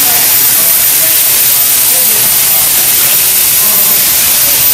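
A loud, steady hiss that does not let up, with faint voices underneath.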